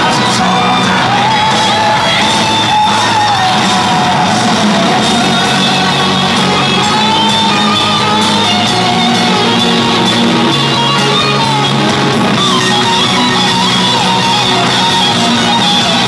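Live pop-rock band playing loudly with electric guitars and bass, a sustained lead line wavering over steady chords.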